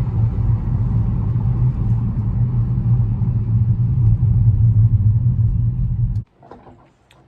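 Steady, loud low rumble of a vehicle in motion, which cuts off suddenly about six seconds in.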